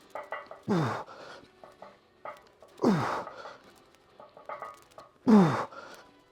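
A man grunting hard on exhaling with each rep of a bench press set: three breathy grunts that fall in pitch, about two seconds apart, from the effort of a tough set.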